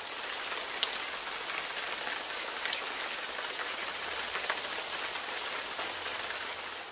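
Rain-like sound effect: a steady hiss with scattered crackles, fading away near the end.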